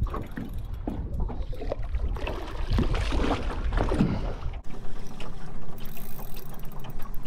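Wind rumbling on the microphone and water splashing as a hooked fish thrashes at the surface beside a small aluminium boat. The wind drops out suddenly about four and a half seconds in, and a fast, high clicking follows near the end.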